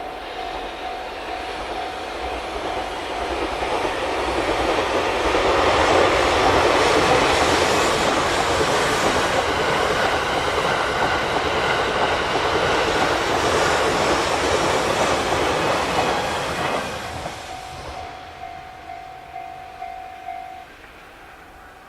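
The Train Suite Shiki-shima (JR East E001 series) passes a level crossing. Its rumble and wheel clatter build over a few seconds, stay loud for about ten seconds, then fade away. The crossing's warning bell rings steadily before the train drowns it out, comes back as the train recedes, and stops near the end.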